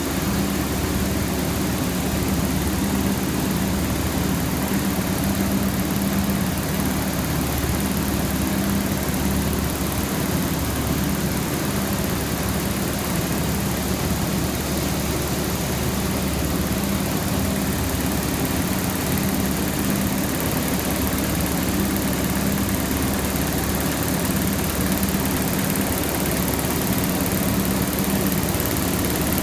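Yitai centre-line zipper needle looms running: a steady, dense mechanical noise with a constant low hum and no change in speed.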